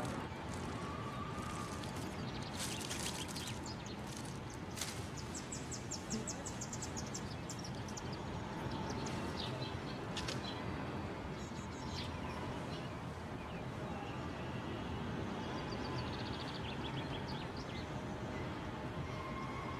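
Outdoor ambience: a steady background hiss with small birds chirping in quick runs of high notes, about a quarter of the way in and again later.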